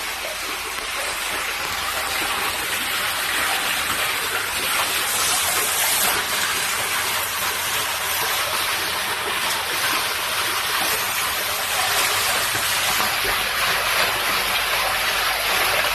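Steady, loud rush of water from a heavy rainstorm downpour, an even hiss with no letup.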